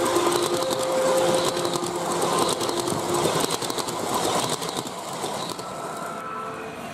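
G scale model freight cars rolling past on the track, their wheels clattering in rapid clicks with a thin whine on and off. The clatter fades after about four seconds as the cars move away.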